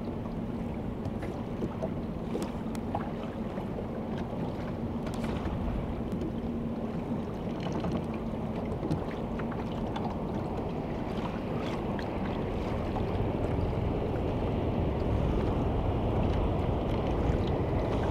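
Small wooden motorboat under way: a steady low engine rumble with water splashing along the hull and some wind on the microphone. A faint steady hum fades out about seven seconds in, and the rumble grows louder toward the end.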